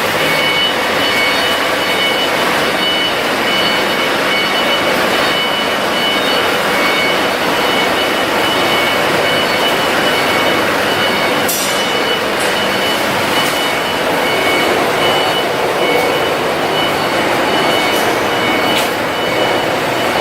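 900 kVA Cummins diesel generator set running steadily and loudly, with thin high tones sounding on and off over the engine noise.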